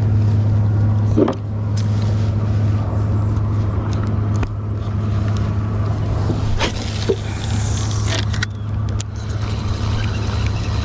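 A boat motor running with a steady low hum, with a few sharp knocks and clicks from the boat.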